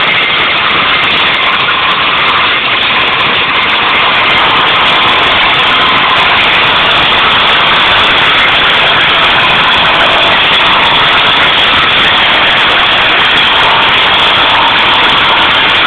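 Branch shredder (wood chipper) running loudly and steadily.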